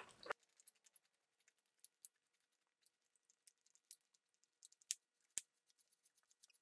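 Faint, scattered metallic clicks and ticks as a tractor's mechanical top link is turned in gloved hands to unscrew its threaded ends. The two sharpest clicks come about five seconds in.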